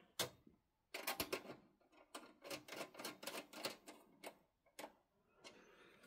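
Screwdriver turning a screw into the desktop PC's sheet-metal chassis: a faint run of small, irregular clicks and ticks, thickest through the middle, with a few single clicks near the start and end.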